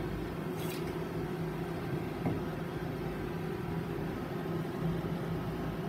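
A steady low hum of background noise, with a light click about two thirds of a second in and another faint one a little after two seconds.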